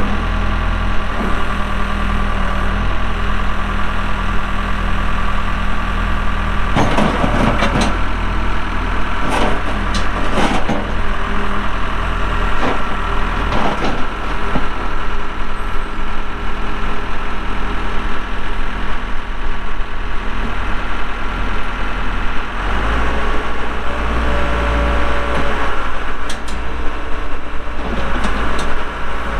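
1998 Case 580L backhoe's Cummins diesel engine running steadily while the machine is worked, with a series of short knocks and clanks from the working gear. About 22 seconds in the engine note shifts lower and heavier.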